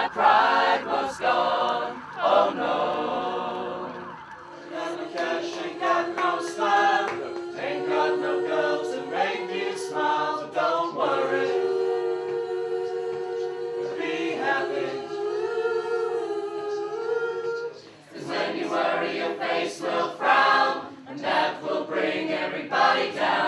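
Community choir singing unaccompanied, with long held chords through the middle.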